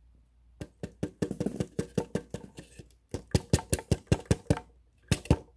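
Rapid series of light taps or knocks on a hard object, several a second, with a short pause about three seconds in and a last pair near the end.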